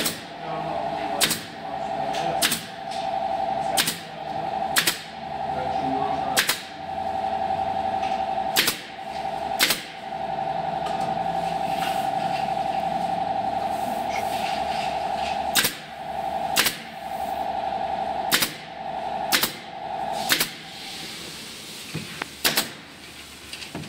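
Pneumatic stapler firing staples into a thin hardboard panel: about fourteen sharp shots, mostly a second or so apart, with a pause of a few seconds in the middle. A steady hum runs beneath them and stops about twenty seconds in.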